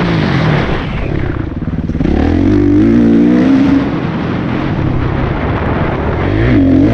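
Kawasaki motocross bike engine under the rider, revving up and down with the throttle: the revs drop off about a second in, climb hard again from about two seconds, ease back, and rise once more near the end.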